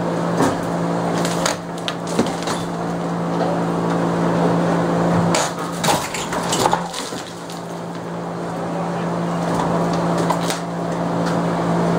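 Demolition sounds: scattered sharp knocks and cracks of wood being broken or dropped, several in a row, over a steady machine hum that drops away briefly around the middle.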